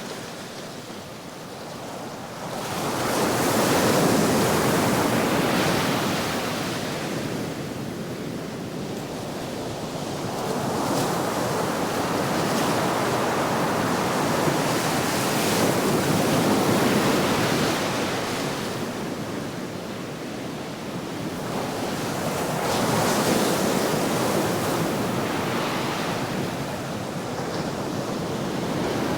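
Medium ocean waves washing onto a shore, a steady rush of surf that swells and ebbs every several seconds, with the louder surges about 4, 16 and 23 seconds in.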